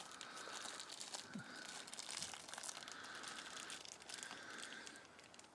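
Faint crinkling and rustling of ration-pack packaging being handled, with a few small ticks.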